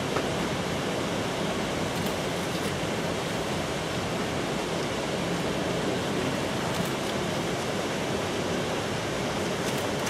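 Steady rushing roar of a tall waterfall of about 100 metres and the river running below it, an even noise that holds constant throughout.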